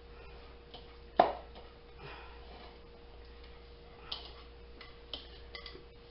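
Kitchen handling noises as the last meatloaf mix is scraped out of a mixing bowl by hand into a roasting pan: one sharp knock about a second in, then a few light taps and clicks of bowl against pan, over a faint steady hum.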